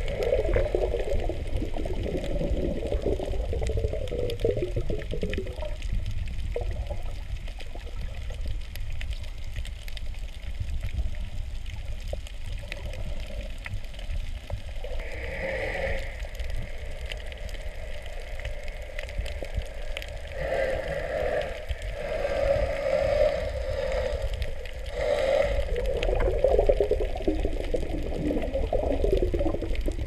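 Underwater sound picked up by a camera in its waterproof housing: a constant low rumble of moving water with many small clicks, and irregular bursts of gurgling now and then, the loudest near the end.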